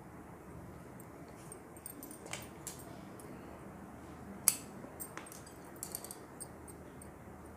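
Faint handling noise of thread and a small fabric tassel being worked by hand on a tiled floor: a few light clicks and taps, the sharpest about four and a half seconds in, with a small cluster of them about six seconds in.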